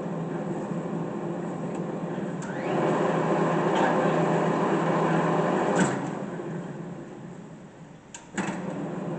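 South Bend engine lathe's spindle and geared headstock running under power in reverse, getting louder as it speeds up about two and a half seconds in. A click about six seconds in and it winds down, then another click near the end and it runs steadily again.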